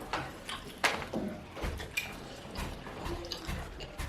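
Eating sounds from the mukbang: chewing and mouth noises over the spicy fish pepper soup, with a scattered series of short clicks and knocks like cutlery against dishes.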